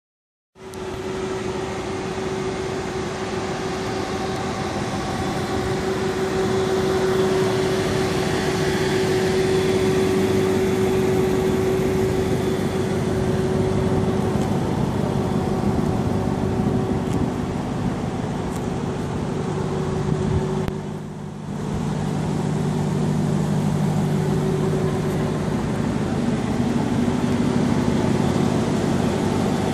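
Steady machine hum with a constant tone over outdoor noise. It dips briefly about 21 seconds in, and a lower hum comes in for a few seconds after.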